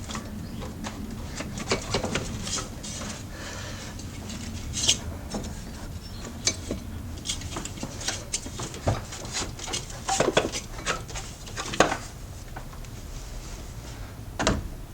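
Irregular metal clinks, knocks and scraping as a loose alternator is worked free and lifted out of a car's engine bay, with a few louder clunks scattered through.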